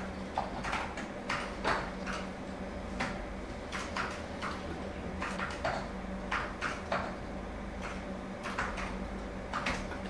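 School interior general atmosphere: irregular clicks and knocks, several a second, over a steady low hum.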